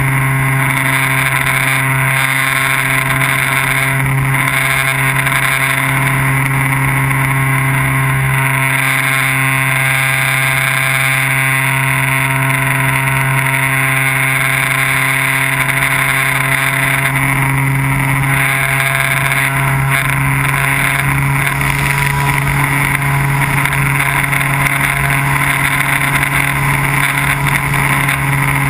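Small unmanned aircraft's motor and propeller running steadily, a droning hum that holds one pitch throughout, as picked up by the camera mounted on the airframe.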